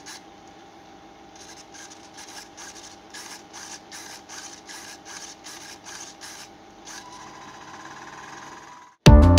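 Quick rubbing or scraping strokes, about two to three a second, over a faint steady hum. Loud music starts suddenly near the end.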